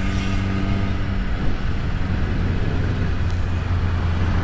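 Yamaha R1 (RN12) inline-four engine running while the bike is ridden on the road, with steady wind noise on the microphone. The bike is shifted up from second to third gear.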